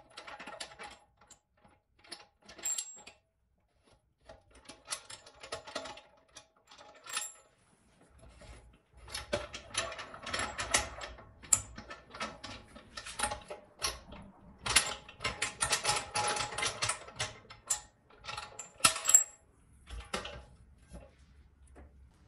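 Metal wing-knob clamp bolts being unscrewed around a steel pressure pot's lid: a run of clicks, rattles and clinks as the knobs spin on their threads and the clamp arms swing and knock against the pot. The clatter is sparse at first and gets busy from about halfway through.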